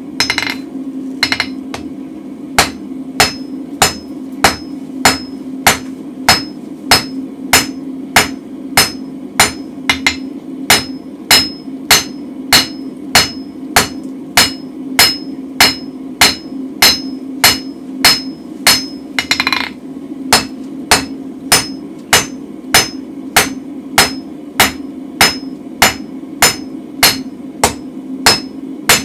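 Hand hammer striking red-hot mild-steel bar stock on an anvil at a steady pace of about one and a half blows a second, each blow ringing briefly, as the steel is drawn out into a tapered handle. A steady low hum from the gas forge runs underneath.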